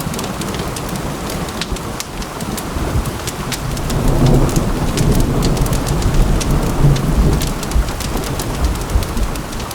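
Heavy rain falling steadily with many sharp drop ticks, and a low roll of thunder that swells about four seconds in and rumbles on through most of the rest.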